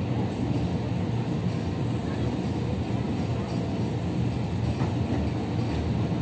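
Steady low rumble inside a KRL Commuterline electric commuter train car running on the line.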